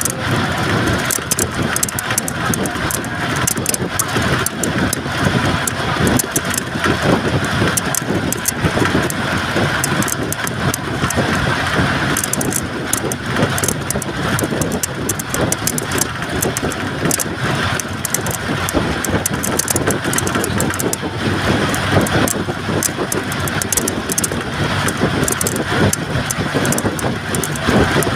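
Steady running noise of a vehicle driving across the Jamuna Bridge, heard from on board: engine and rolling noise with many quick, irregular rattles and clicks.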